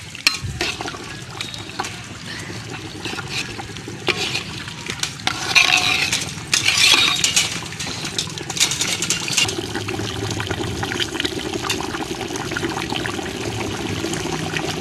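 Water and chicken masala at a rolling boil in a large aluminium pot, bubbling and splashing, with a metal ladle stirring and clinking against the pot at the start and a few louder splashing stretches midway.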